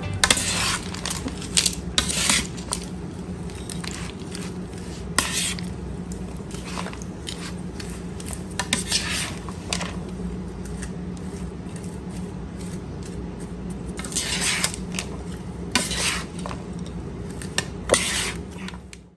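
Metal cutlery and utensils clinking and scraping against dishes and bowls in a kitchen, in scattered sharp strikes, over a steady low hum.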